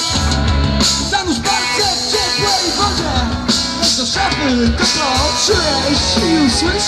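Live rock band playing: a drum kit and electric guitars, loud and steady.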